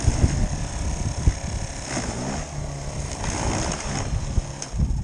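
80-volt electric snow shovel running, its motor whine over a steady rush, with heavy wind rumble on the microphone.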